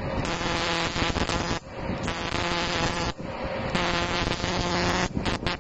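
Pulsed TIG welding arc from a WS-275 pulse argon arc welder, buzzing with a steady hum over a hiss. It cuts out briefly twice and strikes again, giving three stretches of arc.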